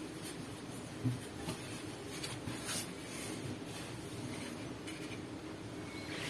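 Faint rustling and handling noise with a few light clicks, the clearest about a second in.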